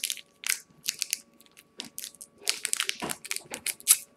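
Wrapper of a 2016 Topps Bunt baseball card pack being torn open and crinkled by hand, in short irregular bursts of crackling that come thickest over the last second and a half.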